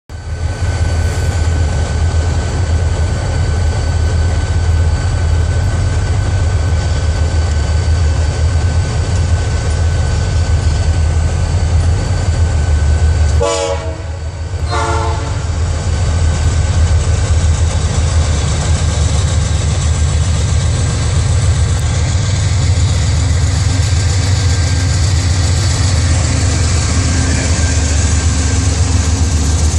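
GE D9-40BBW and EMD SD40T-2 diesel-electric freight locomotives running past close by: a heavy, steady engine rumble with a steady whine over it. About halfway through there are two short train horn blasts about a second apart.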